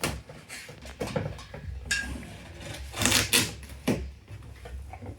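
Unpacking by hand: packaging rustling and scraping, with scattered knocks and clicks as parts are handled, and a longer rustle about three seconds in.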